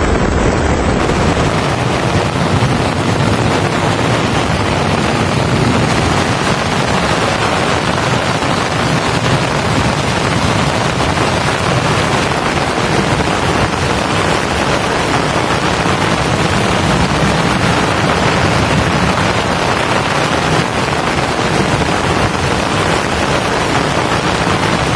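Heavy rain with muddy runoff water rushing down a rocky slope: a loud, steady, dense rushing noise.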